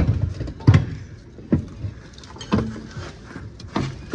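Sharp metal clunks and knocks, about five in four seconds, as a BMW E36's 188 mm rear differential is heaved up and knocked into place against the subframe.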